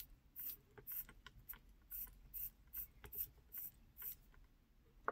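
The crown of an Eterna Avant-Garde automatic watch (Sellita SW200 movement) being hand-wound, a run of soft ratcheting rasps about two or three a second that stops about four seconds in. A single sharp click comes near the end.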